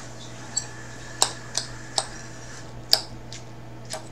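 Metal fork clinking and scraping against a ceramic salad bowl while spearing salad: about seven sharp clicks, spaced unevenly.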